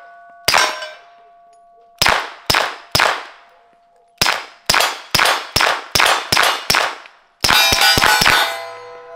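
Suppressed pistol firing supersonic rounds at steel targets. The shots come one after another at a steady pace, each hit followed by the ringing of the steel plates. Near the end a fast burst of five or six shots sets several plates ringing at once.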